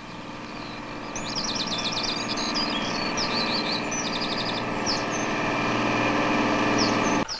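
A lorry's engine running steadily and growing louder as it approaches, with birds chirping over it, mostly in the first half. The sound cuts off suddenly near the end.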